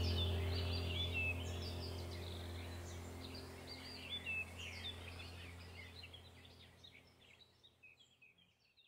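Birds chirping and trilling over a low steady hum, the whole sound fading out smoothly to silence near the end.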